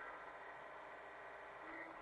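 Hitachi mini excavator's engine and hydraulics running steadily, a dense, even hum with faint tones that shift slightly near the end.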